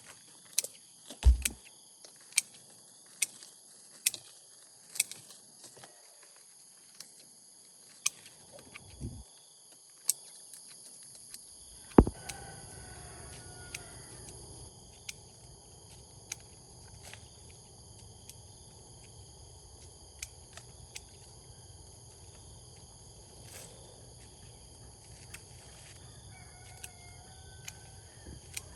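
Sharp clicks and knocks, about one a second at first and sparser later, over a steady high-pitched drone. A loud knock about twelve seconds in, and a low rumble runs on from there.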